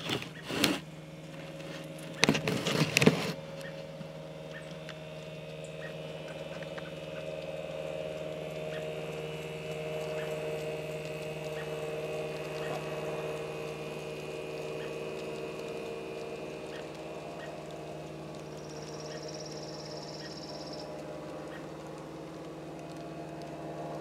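N scale model diesel locomotive running past at track level with its ore hoppers, its small electric motor humming steadily, with light scattered clicks of the wheels over the track. A few loud, sharp noises come in the first three seconds.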